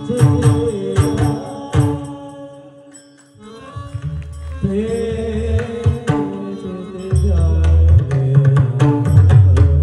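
Abhang devotional music: pakhawaj drumming with a sung melody. The music thins almost to a pause about three seconds in, then builds again, with deep, heavy pakhawaj bass strokes near the end.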